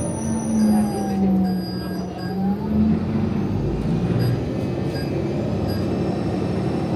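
A vehicle running with a steady low rumble. During the first three seconds a pitched drone sags slightly and rises again.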